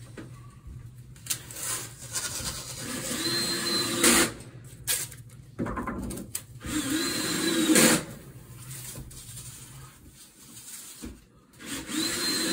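Blue painter's tape being pulled off the roll in three long strips, each pull ending sharply as the strip is torn off.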